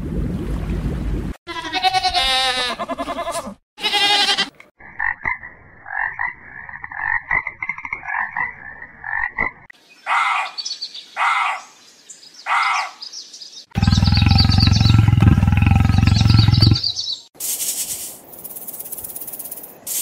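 Several different animal calls cut one after another with short breaks between them. Among them are a rapid pulsing call lasting about five seconds, three short goose honks about halfway through, and a loud deep call after them.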